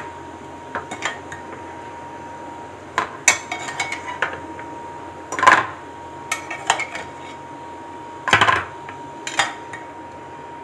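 Metal kitchen tongs clinking against a steel pot and knocking as boiled eggs are lifted out of the water and dropped into a plastic tub, in short scattered clatters. The loudest come about halfway through and again near the end. A faint steady tone runs underneath.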